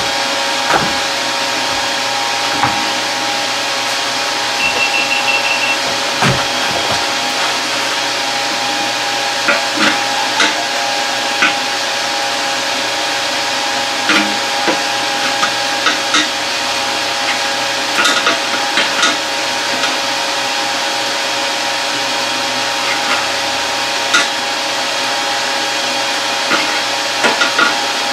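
Steady whoosh and hum of a running fan, with scattered light clicks and knocks as metal parts are handled.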